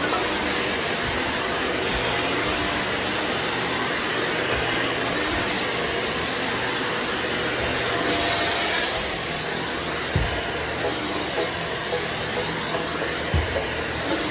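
Vacuum cleaner motor running steadily with a dense whooshing suction noise as the head is worked over carpeted stair treads, with a couple of short bumps late on.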